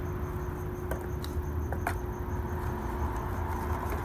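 A few light clicks of plastic parts being handled, most likely the kit's door-lock actuators, over a steady low hum.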